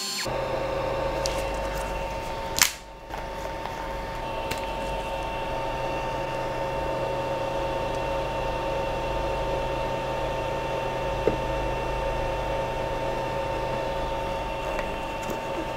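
Creality LD-002H resin 3D printer running with a steady whine of several constant tones over a low hum. A sharp click comes a little under three seconds in.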